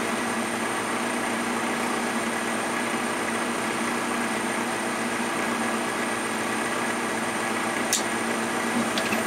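Draft inducer blower of a Trane 92% AFUE gas furnace running with a steady hum, purging the heat exchanger before the burners light. Two sharp clicks near the end.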